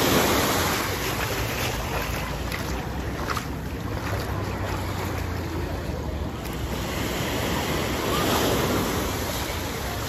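Sea waves breaking and washing up the shore, swelling at the start and again about eight seconds in, with some wind on the microphone.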